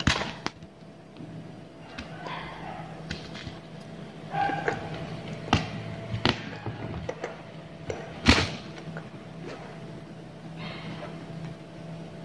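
Scattered sharp taps and knocks from aari hand-embroidery work, as a needle picks small beads out of a plastic lid and stitches them onto fabric stretched taut on the embroidery frame; the loudest knock comes about eight seconds in. A steady low hum runs underneath.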